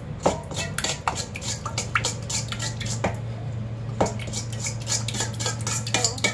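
A spoon stirring a wet oil-and-spice marinade in a stainless steel mixing bowl, with repeated clinks and scrapes of the spoon against the metal bowl.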